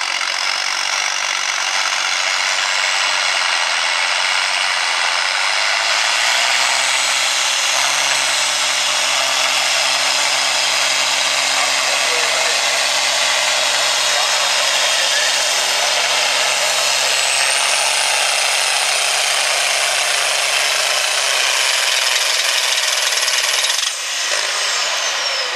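International Harvester farm stock tractor's engine running flat out under load while pulling a weight-transfer sled: a loud, steady noise with a high whine that rises near the start and again in the second half. Near the end the engine is throttled back, the level drops and the whine falls away.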